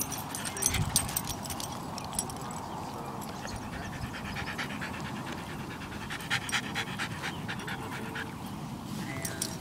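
A dog panting in quick, rhythmic breaths close to the microphone, out of breath from running.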